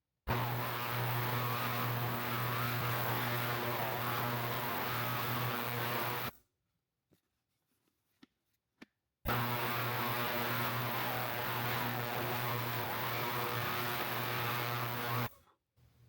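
An electric machine running with a steady, even hum, heard in two stretches of about six seconds that each start and stop abruptly, with a few faint clicks in the gap between them.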